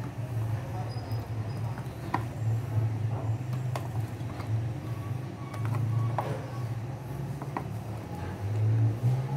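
Metal utensil stirring thick cake batter in a glass bowl, with scraping and a few sharp clinks against the glass, over a low hum that swells and fades.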